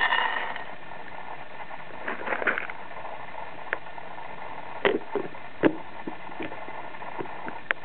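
A stainless-steel dog food bowl with kibble set down on a plastic cage floor: a sharp clatter with a short metallic ring. Then a rustle and a few scattered light clicks and knocks.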